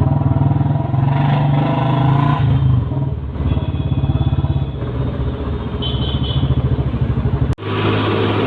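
A motorcycle engine running steadily, with a brief sudden break near the end before it carries on.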